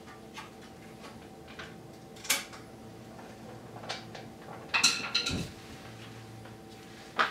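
Scattered light clicks and taps of hand work on a metal screw band clamp around an exhaust pipe guard, with a brief cluster of ringing metal clinks about five seconds in and a sharp knock near the end.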